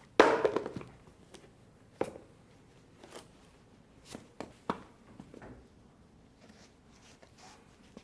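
A short rattling clatter of objects being handled, then a few separate sharp knocks and taps, in a small room.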